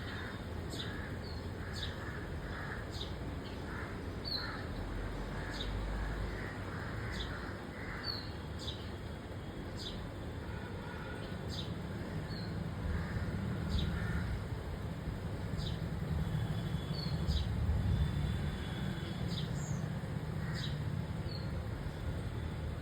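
Small pet birds in an aviary chirping: short, sharp, high calls about once a second, over a steady low rumble.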